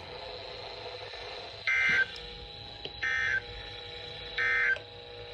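Three short bursts of Emergency Alert System SAME data tones, a rapid warbling buzz, spaced about a second and a quarter apart: the end-of-message code that closes the severe thunderstorm warning. A faint steady hum lies underneath.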